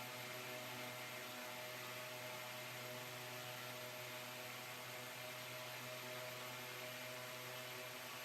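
Faint, steady electrical hum with a light hiss and no changes.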